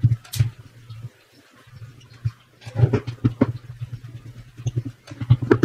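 Hard plastic drill housing clacking and knocking against a wooden tabletop as it is handled and turned over, in short bunches of sharp knocks, over a low steady hum.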